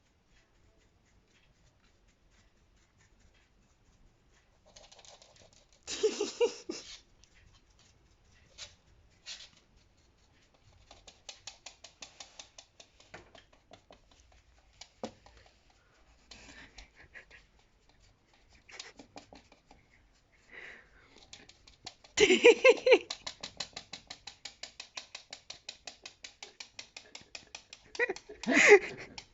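A dog being scratched at its sweet spot: runs of quick rhythmic tapping, several a second, as its leg kicks with pleasure, the longest run starting about two thirds of the way in.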